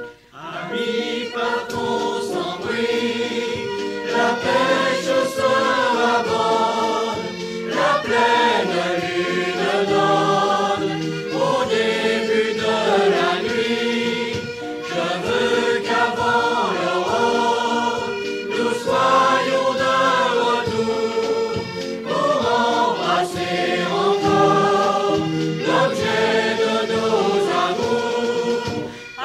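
Choir singing a traditional French folk song.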